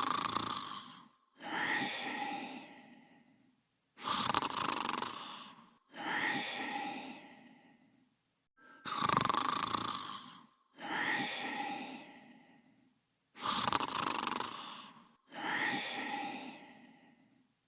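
Snoring in a steady two-part cycle: a snore drawn in, then a breath let out, each starting abruptly and trailing off over about two seconds. The pair repeats about every four and a half seconds, four times over.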